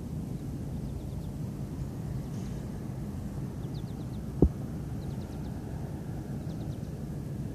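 A single dull thump about halfway through, the 14-pound pud landing on the grass after a throw straight up, over a steady low outdoor rumble.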